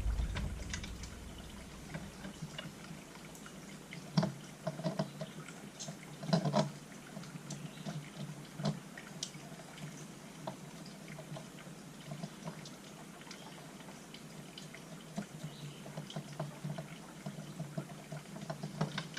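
Scattered small clicks and taps of a carburetor and its mounting bolts being handled and fitted onto a chainsaw by hand. The clearest taps come about 4 and 6.5 seconds in.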